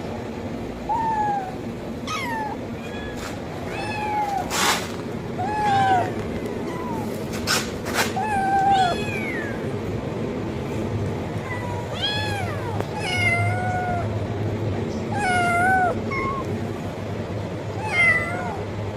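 A kitten meowing over and over, about a dozen high meows one every second or two, calling for food. A few sharp clicks fall among the meows over a steady low background hum.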